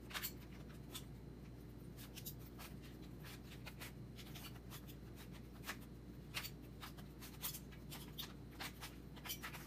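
Rubik's Cube layers being turned by hand: irregular plastic clicks and clacks, a few a second, as the last layer is worked toward the solve, over a faint steady low hum.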